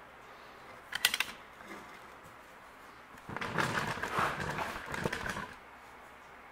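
Handling noise as a camera is repositioned: a few sharp clicks about a second in, then about two seconds of rattling and rustling with many small clicks.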